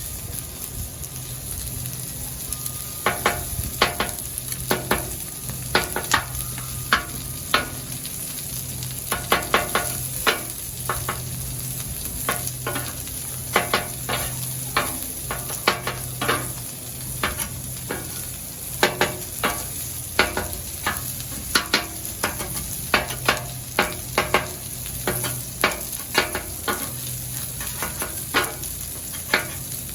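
Food sizzling on a Blackstone flat-top griddle, with a metal spatula clanking and scraping on the steel top many times in irregular clusters, each hit ringing briefly.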